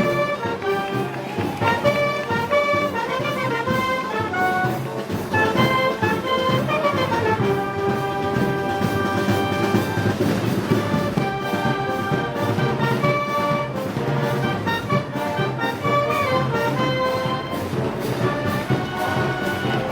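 Brass band playing Moros y Cristianos festival music: a melody carried over a steady accompaniment, with quick runs of notes a few times.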